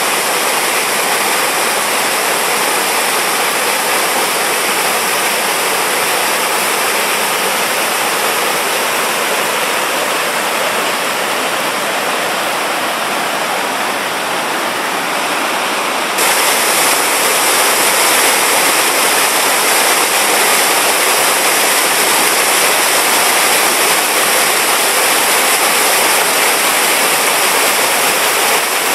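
Small waterfall, about 2.5 m high, pouring over rocks into a stream: a steady rush of falling water that gets slightly louder and brighter a little past halfway through.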